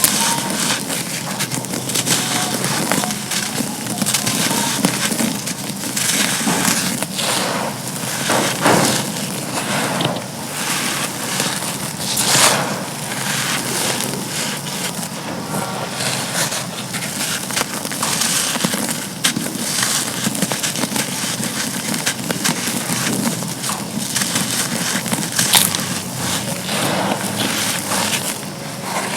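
Chunks of charcoal being crumbled and crushed: continuous gritty crunching and crackling, with many small sharp cracks.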